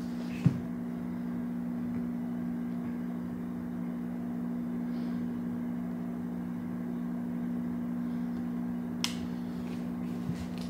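Steady low electrical-sounding hum of two pitches, with a light click about half a second in and a sharp tick about nine seconds in.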